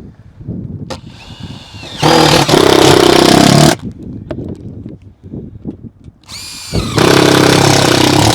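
A handheld power tool spins up with a rising whine and runs hard twice, each time for about two seconds, during work on a metal roof.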